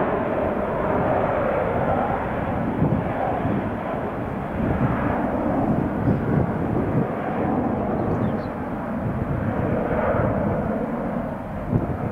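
Airbus A321 jet airliner's engines, a steady loud rumble.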